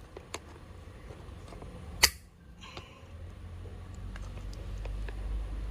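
Pliers working a wire connection tight: a few light metal clicks and one sharp click about two seconds in.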